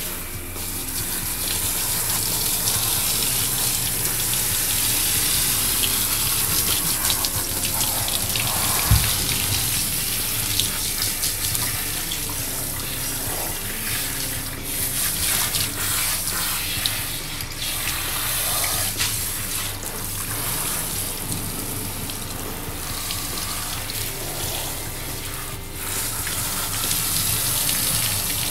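Handheld shower head spraying water steadily over a standard poodle's wet coat, the water splashing off the dog and running into the bathtub. A short thump about nine seconds in.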